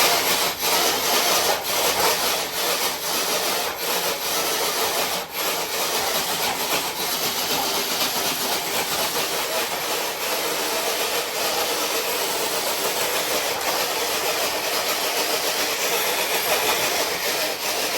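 Traxxas TRX-4 RC crawler truck pulling a weighted sled, which scrapes and grinds steadily along the floor under load with no let-up.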